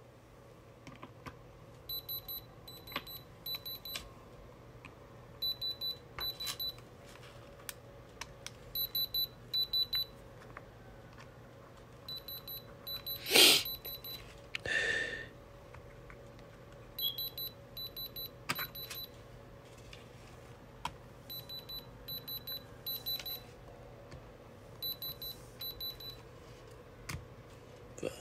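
Handheld diamond tester beeping in quick high-pitched groups of about three beeps, every few seconds, as its probe is touched to the stones of iced-out chains; the beep and lit LED bar are the tester reading a stone as diamond. One loud knock about halfway through, followed by a brief rustle.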